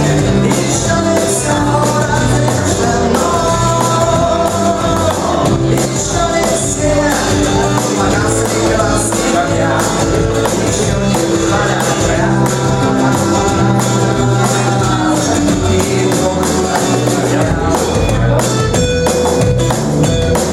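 Rock band playing a song live, with electric bass guitar holding down the low end under steady drums and cymbals, and long held melodic notes above.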